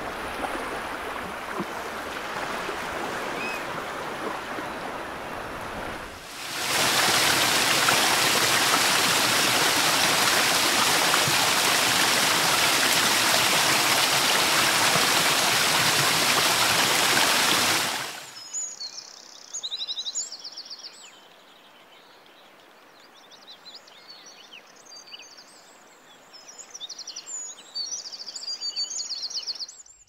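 Ocean surf washing over rocky shore ledges, then at about six seconds a sudden switch to the loud, steady rush of a waterfall. This cuts off abruptly at about eighteen seconds, giving way to birds chirping against a quiet background.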